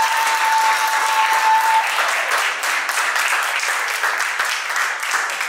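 Small audience applauding with hand claps, while one person holds a long high cheer over it that stops about two seconds in.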